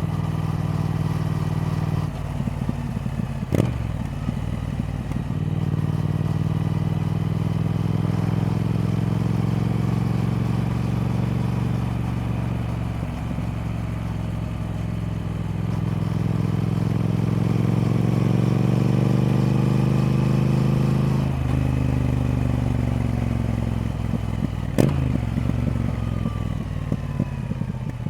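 Triumph Speed Twin's parallel-twin engine running as the motorcycle is ridden. Its pitch slowly climbs with the revs, then drops about three-quarters of the way through. Two sharp knocks stand out, one a few seconds in and one near the end.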